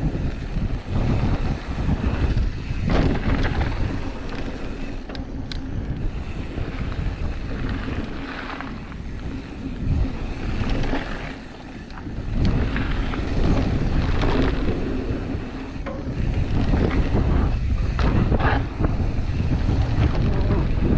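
Wind buffeting the camera microphone and tyres rumbling over a dirt trail as a mountain bike rides downhill, with scattered knocks and rattles from the bike going over bumps.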